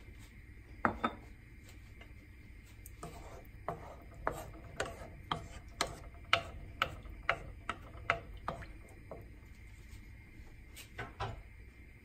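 Wooden spatula knocking and scraping against a nonstick pan while stirring a wet mix of onions and chicken, about two knocks a second for several seconds from about three seconds in. There is a pair of knocks about a second in and another pair near the end.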